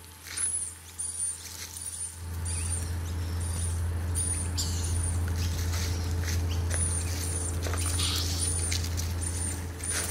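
An injured rainbow lorikeet on the ground giving repeated short, thin, very high squeaks, about two a second, with a pause of a second or so midway. A steady low hum grows louder about two seconds in and runs under the squeaks.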